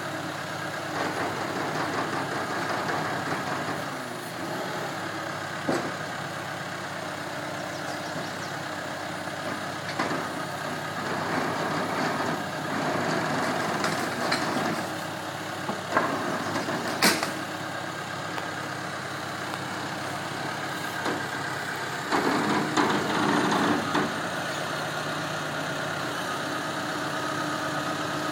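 Diesel engine of a G9-43A telehandler running steadily, getting louder for about two seconds three-quarters of the way through. Occasional single knocks sound over it, the sharpest about 17 seconds in.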